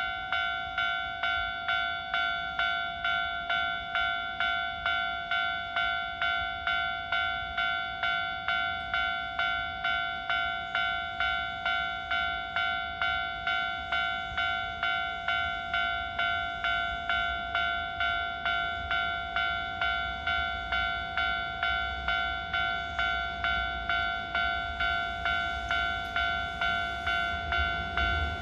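Japanese level-crossing warning bell ringing, an electronic ding repeating about twice a second while the crossing is closed. In the last few seconds an approaching train's rumble rises beneath it.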